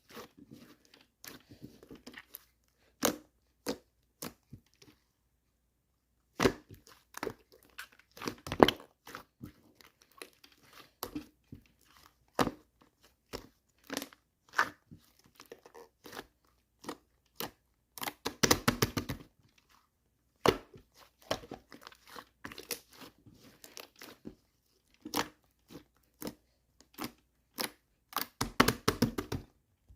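Hands squishing and pressing a two-layer slime, making sharp sticky clicks and pops. There are quick crackling runs of pops about 18 seconds in and again near the end, and a brief pause around 5 seconds in.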